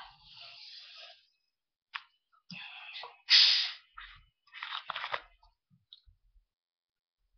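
Someone crunching and chewing raw onion in short noisy bursts with a few clicks, the loudest burst about three and a half seconds in.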